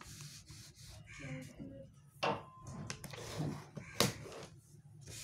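Sheets of paper being handled and shifted on a desk, with two sharp taps, about two seconds in and again about four seconds in.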